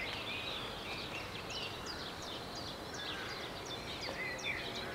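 Songbirds chirping and singing, with many short, quick high notes scattered irregularly, over a steady low background noise of the town.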